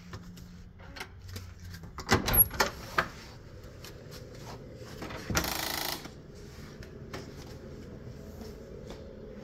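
Handling noise: a cluster of sharp knocks and clatter about two seconds in, then a brief rush of noise lasting under a second, with scattered light clicks over a low steady background.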